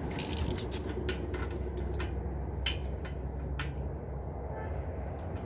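Scattered small metallic clicks and taps as a new spark plug is handled and fitted into the plug hole of a Craftsman T110 riding mower's engine, over a steady low rumble.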